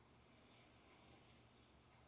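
Near silence: a faint steady low hum and hiss of room tone.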